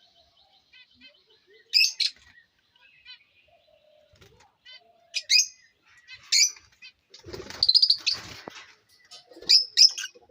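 Caged lovebirds giving sharp, high chirping calls every second or two, with a flurry of wing flapping in the cage about two thirds of the way in. Faint, rapid twittering of other small birds runs underneath.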